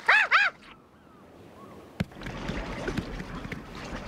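A brief run of rising-and-falling voice-like cries at the very start, then, from about two seconds in, water sloshing and lapping in an indoor pool where a shark is swimming.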